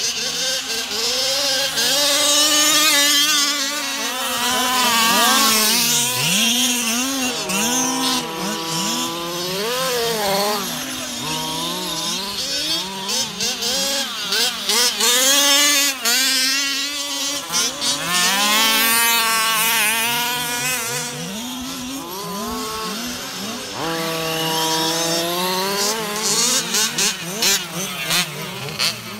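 Several 1/5-scale petrol RC cars' small two-stroke engines revving hard and dropping back as they race, their pitches climbing and falling and overlapping one another.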